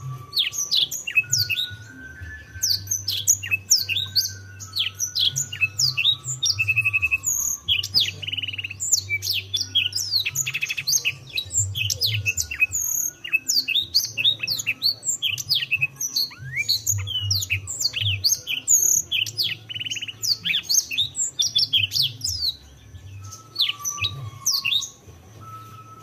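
Canary singing a fast, continuous song of quick falling chirps mixed with short rolled trills. It breaks off near the end, then gives a few more brief phrases.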